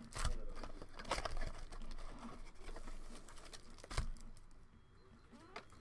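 Foil-wrapped baseball card packs crinkling and rustling as they are handled and laid down on a table, with one sharp knock about four seconds in.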